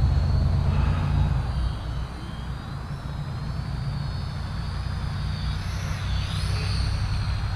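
Wind buffeting the microphone, with the thin high whine of the Helicute H818HW quadcopter's motors, its pitch rising and falling as the throttle changes.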